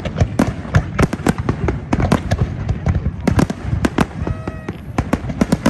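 Fireworks display: aerial shells bursting in rapid, overlapping succession, several sharp bangs a second over a continuous low rumble.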